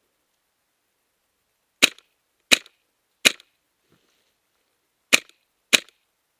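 Airsoft gun firing five single shots, each a short sharp crack: three in quick succession, a pause, then two more.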